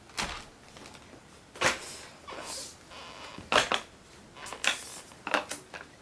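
Five or six sharp knocks and clicks, roughly a second apart, as a canister vacuum's hose and wand are handled; no motor is running yet.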